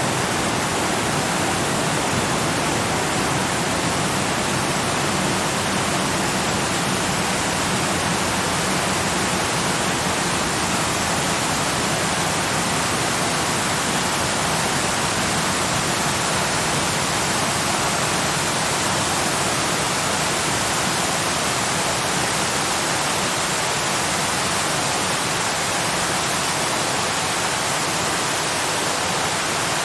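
Rushing water flowing steadily: a continuous, even rush of noise with no breaks or separate splashes.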